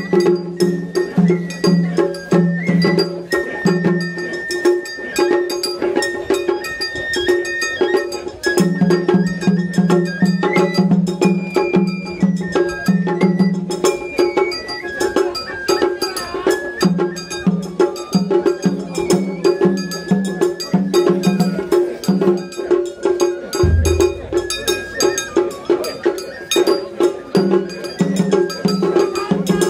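Japanese festival music (matsuri bayashi): a high, wandering melody line over rapid, clacking metal and wood percussion. A low pulsing layer comes and goes in stretches, and a single deep low stroke lands about three-quarters of the way through.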